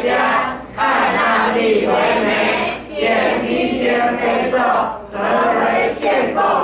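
A group of children's voices reciting in unison, in phrases broken by short pauses about every two seconds.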